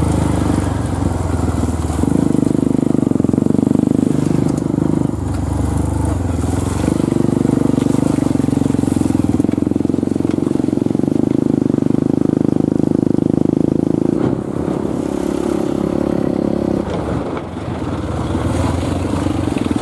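Diesel engine of a loaded Mitsubishi Canter palm-fruit truck running close by on a rough dirt road, steady and loud, with a few sudden shifts in pitch and level.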